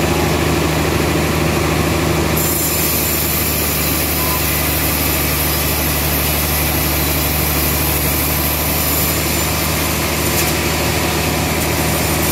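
Large log band saw running steadily, an even, loud machine drone with a deep hum.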